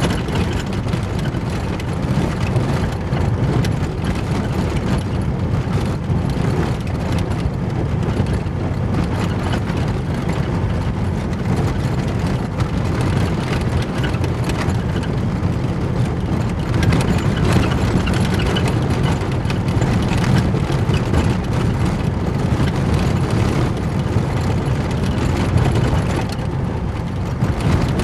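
Car driving on a loose gravel road, heard from inside the cabin: a steady low rumble of tyres on gravel and engine, with frequent small clicks and ticks of stones against the car.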